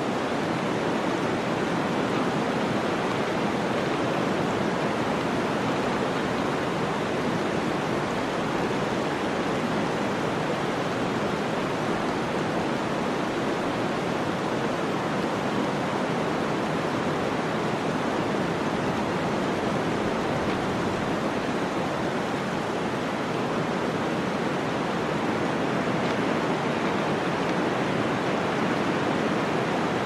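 Blizzard wind blowing through a forest: a steady, even rushing noise with no distinct gusts or breaks.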